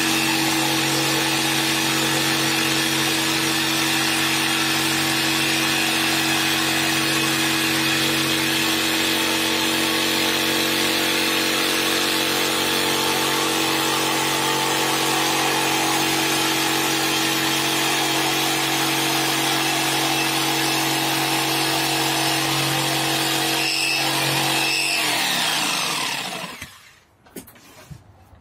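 Makita jigsaw running steadily as it cuts through a wooden board. About 25 seconds in, it is switched off and its motor winds down with a falling pitch, leaving a brief quiet gap near the end.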